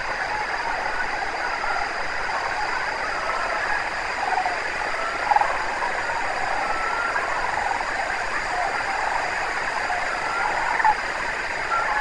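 A large flock of sandhill cranes calling all at once, a dense continuous chorus of overlapping calls. A few louder calls stand out about five and eleven seconds in.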